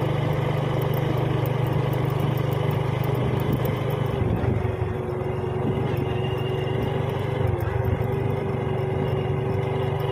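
Small motorcycle engine running steadily while riding, heard from on the bike, easing off slightly about halfway through.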